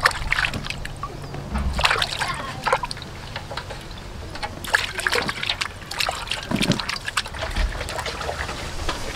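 Water sloshing and splashing in a metal pot as a cow head is scrubbed and turned by hand, in short irregular splashes.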